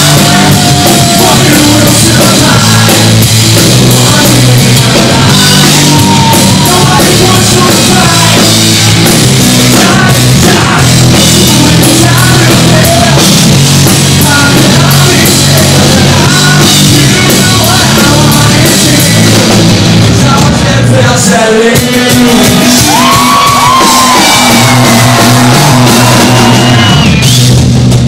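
Live rock band playing loud, heard close to the stage: electric guitar and a steady bass line under a lead vocal that is sung and shouted.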